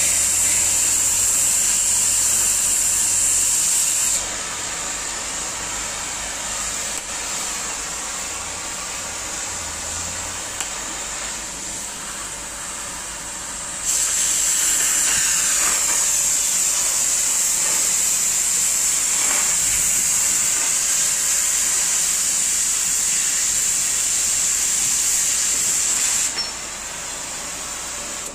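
Oxy-fuel gas cutting torch hissing steadily as it cuts through steel plate about 3 cm thick. The hiss is loud for the first four seconds and again from about 14 to 26 seconds in, and drops to a quieter hiss in between and near the end.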